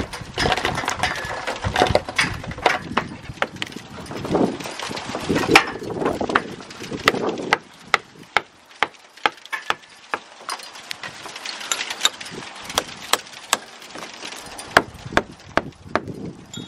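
Lump hammer repeatedly striking a damaged clay brick set in a wall, a quick, irregular run of sharp knocks. The brick breaks up and its pieces rattle loose as it is knocked out for replacement.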